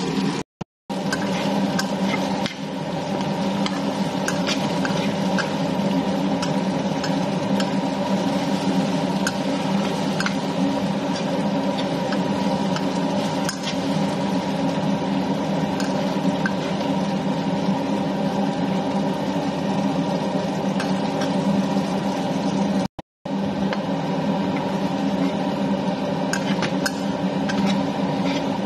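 A steady hum under the sizzle of a sugary coconut-milk mixture cooking in a stainless steel wok, with short clicks and scrapes as a metal spatula stirs it. The sound drops out briefly twice.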